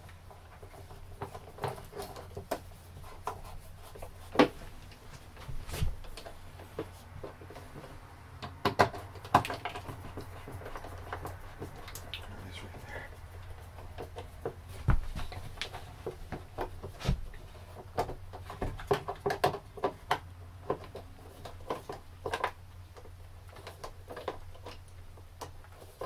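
Scattered clicks, taps and scrapes of a screwdriver and hands working an electrical outlet into its box in a wooden cabinet, screws being driven in by hand, over a low steady hum.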